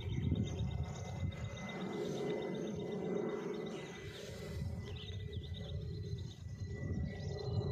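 Open-field ambience: wind rumbling on the microphone, with a steady high thin whine and rapid bird chirping over it.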